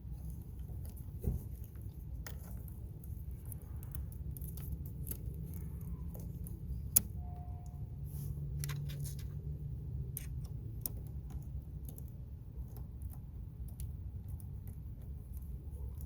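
Small metal clicks and clinks of bolts and hand tools being fitted to a car battery terminal clamp, with one sharper click about seven seconds in, over a steady low rumble.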